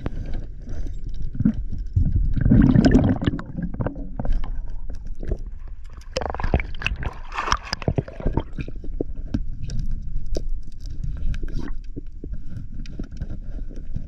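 Underwater sound picked up by the camera: a low rumble of moving water with scattered clicks and knocks. It swells about two to three seconds in and again around six to eight seconds in.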